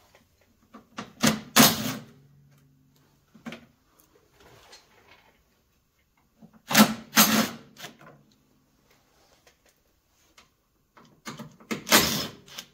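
Cordless impact driver run in short bursts on the brake caliper bolts of a Polaris Ranger's front wheel, loosening them to take the caliper off; three spells of bursts with pauses between.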